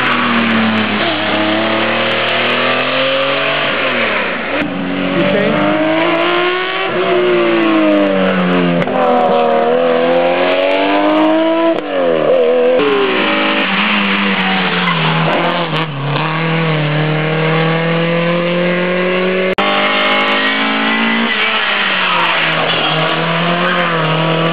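Historic rally cars driven hard on a stage, passing one after another. Their engines rev high, and the pitch climbs and falls back with each gear change. The sound jumps abruptly three times where passes are cut together.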